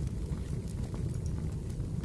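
Wood fire burning: a steady low rumble with a few faint crackles.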